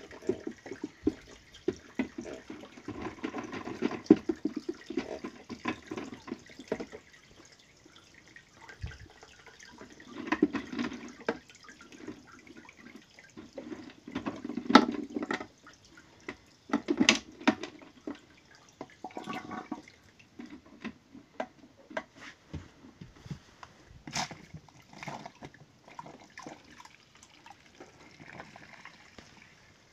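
Water splashing and gurgling as an aquarium is drained through a siphon hose into a container, with scattered knocks and clicks.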